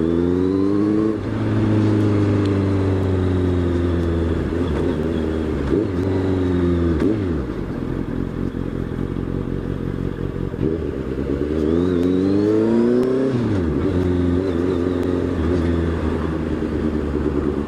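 Honda CB650F inline-four engine on the move, its note climbing as the bike accelerates, falling away about six seconds in, then climbing again near twelve seconds before settling to a steady cruise.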